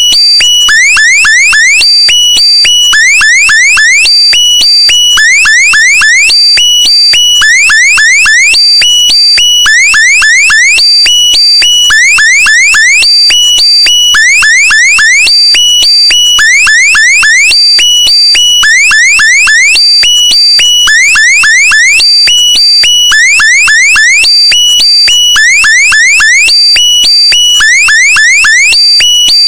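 Loud electronic alarm-like sound effect: clusters of quick rising chirps over steady high tones, repeating over and over at an even pace.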